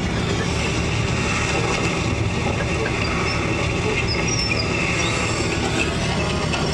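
Steady engine and road rumble heard from inside the cabin of a coach bus cruising on the highway.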